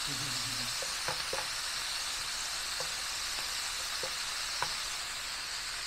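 Ground beef sizzling as it browns in a hot ceramic-coated non-stick pan, a steady hiss, with a few light clicks and scrapes scattered through it as a utensil breaks up the clumps of meat.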